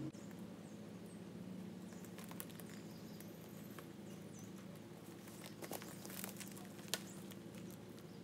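Pickup truck engine running low and steady as it slowly reverses, towing a trailer-mounted aerial lift, with scattered light clicks and one sharp click about seven seconds in.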